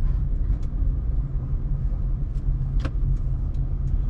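Steady low rumble of a car driving slowly, heard from inside the cabin, with a brief click about three seconds in.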